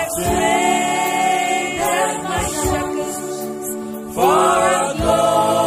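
A choir singing a gospel song in harmony over electronic keyboard accompaniment, with long held notes and a new sung phrase starting about four seconds in.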